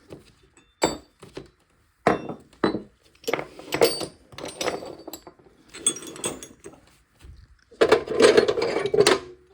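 Heavy steel crowfoot wrenches clinking and knocking against each other as they are handled, with short metallic rings, and a longer clattering rattle near the end.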